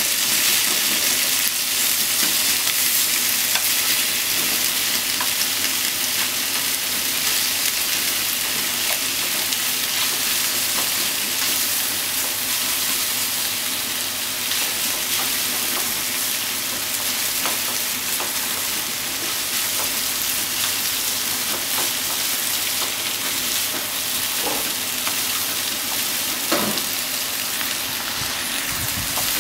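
Raw sliced beef and onion sizzling steadily as they start to fry in a non-stick frying pan, stirred with wooden cooking chopsticks that tick against the pan now and then.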